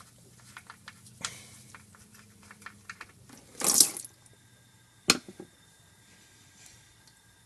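Transmission fluid drain plug being worked loose by hand, with small clicks and rubs, then a short splashing rush about three and a half seconds in as the automatic transmission fluid starts to pour out of the pan. A sharp clink follows a second later.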